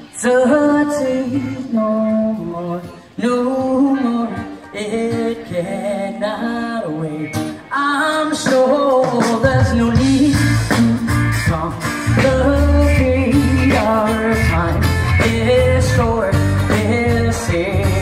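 Live band playing a song with a lead singer. The low end fills in strongly about halfway through, so the band plays fuller for the rest of the song.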